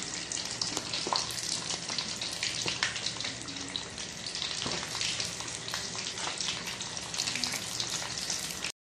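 Tilapia deep-frying in hot oil in a wok: a steady sizzle full of small pops and crackles, cutting off abruptly near the end.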